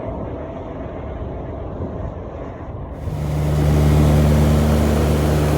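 Aircraft engine noise: a low, muffled rumble that changes abruptly about three seconds in to a louder, steady drone with a deep, even hum.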